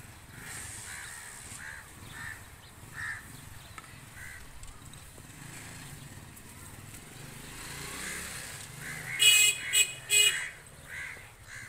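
Outdoor yard ambience: short bird calls about once a second over a low, steady rumble, then three loud honks in quick succession about nine to ten seconds in.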